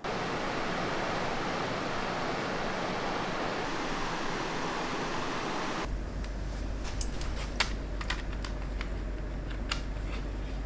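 Steady rush of flowing water. About six seconds in it gives way abruptly to a low hum with scattered light clicks and taps.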